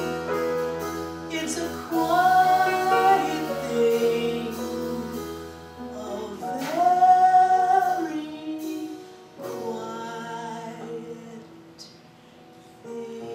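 A woman singing a slow song into a microphone, holding long notes, over piano and upright bass accompaniment. The music drops quieter about a second before the end.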